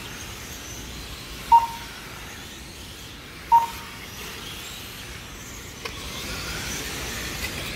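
Radio-control racing trucks running the track, their motors whining and rising and falling in pitch, a little louder in the second half. Two short, sharp beeps about two seconds apart come from the lap-timing system as cars cross the timing line.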